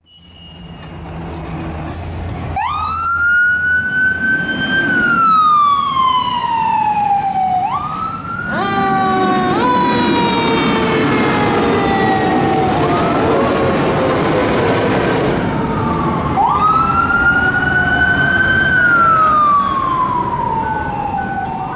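Fire engine siren on an emergency run. A diesel engine hums low before a slow electronic wail starts a few seconds in, rising and then falling. In the middle a second, faster siren pattern and other tones overlap it, and near the end a single slow wail rises and falls again.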